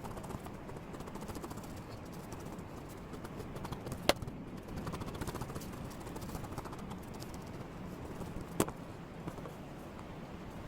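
Flags flapping in a strong, gusty wind with steady wind rush, and two sharp cracks about four and a half seconds apart.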